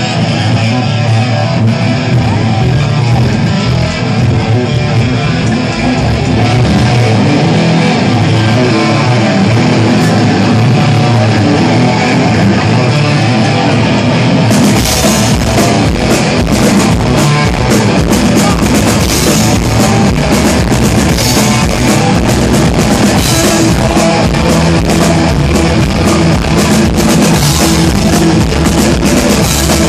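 Rock band playing live and loud: an electric guitar plays on its own, then about halfway through the drums and bass come in and the full band plays on.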